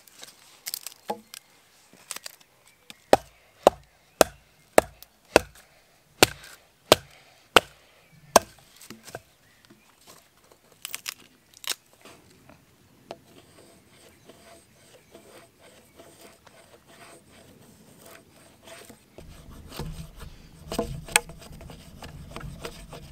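Machete splitting a wooden stake: about a dozen sharp wooden knocks roughly every half second, then a few more a little later. Near the end the blade scrapes along the split wood, shaving it for fire kindling.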